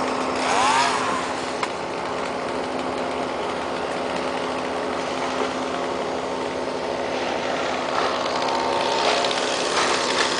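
Engine running steadily at a constant speed, without revving.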